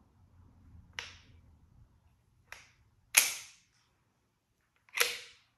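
Four sharp mechanical clacks of an unloaded .45 calibre PCP air rifle being handled and its action worked, the third and fourth the loudest.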